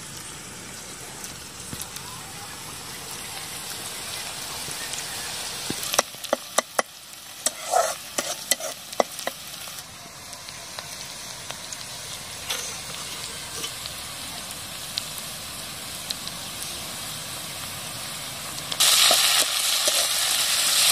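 Sliced onions frying in hot oil in a steel kadai, a steady sizzle, with a metal spatula clinking and scraping against the pan from about six to nine seconds in. Near the end the sizzle turns suddenly louder as the onions are stirred.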